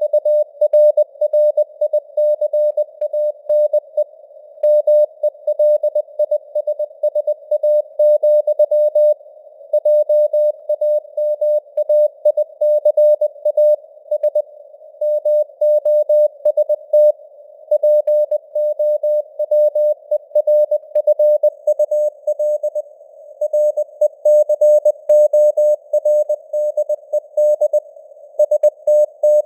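Morse code sent at 20 words per minute: a single mid-pitched tone keyed on and off in dots and dashes, with a longer pause every few seconds between words, over a hiss of simulated radio band noise.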